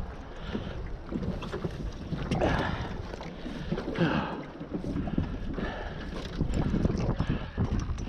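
Wind buffeting the microphone and water slopping against the hull of a small open boat drifting at sea, with a few light knocks.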